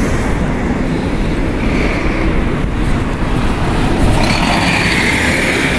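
Steady city street traffic noise: a continuous rumble of cars, with a brighter hiss swelling about four seconds in.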